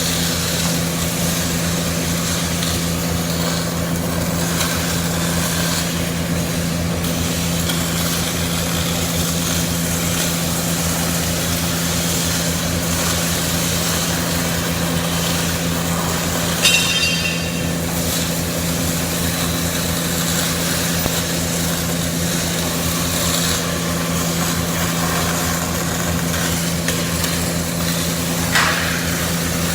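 CO2 gas-shielded (MIG) arc welding: a steady, continuous welding noise over a low electrical hum, with a brief higher sound about halfway through.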